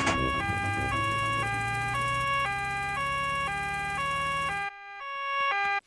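Cartoon two-tone siren swapping between a high and a low note about twice a second, over a low engine hum that stops near the end while the siren carries on briefly.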